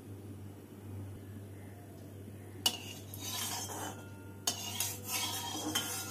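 A steel spatula scraping and clinking against a steel kadai as it spreads mustard oil around the pan, beginning with a sharp knock about two and a half seconds in and with another sharp hit about a second and a half later. Before that only a low steady hum.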